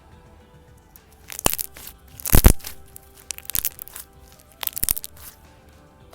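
Thick, glossy slime being pressed and stretched by hand, giving four bursts of sharp crackling pops, the loudest about two and a half seconds in, over soft background music.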